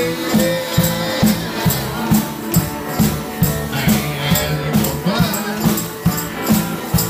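Live band jamming: electric guitars playing over a drum kit with a steady beat and cymbal strokes.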